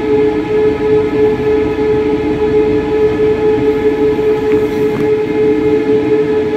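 Moderus Beta MF20AC low-floor electric tram running along its route, a steady whine holding one pitch over the continuous rumble of wheels on the rails.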